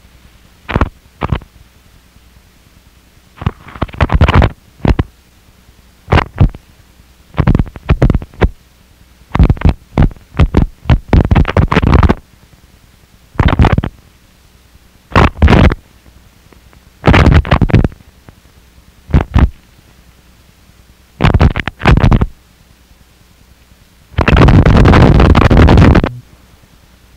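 Harsh noise recording: short blasts of loud distorted noise that cut in and out abruptly, separated by gaps of quiet hiss, ending on a longer blast of about two seconds near the end.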